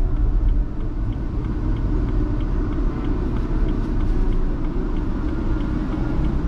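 Steady low rumble of a car driving, with a faint regular ticking about three times a second.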